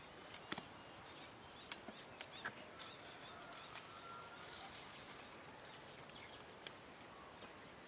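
Bamboo poles knocking: a few sharp, hollow taps in the first couple of seconds as the poles are handled and set against the posts, then faint outdoor ambience with a thin, high call near the middle.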